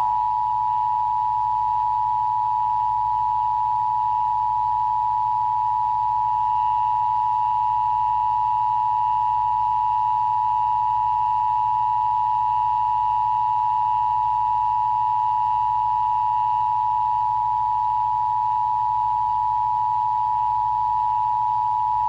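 Emergency Broadcast System Attention Signal: two steady sine tones (853 Hz and 960 Hz) sounding together as one long, unbroken, unchanging two-tone sound, the alert tone of an EBS test.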